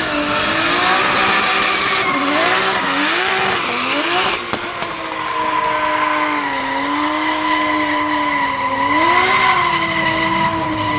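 Drift cars sliding sideways: engines revving up and down under throttle while the tyres screech. From about six seconds in the revs hold steadier and a steady high tyre squeal carries on, then the revs climb again near the end.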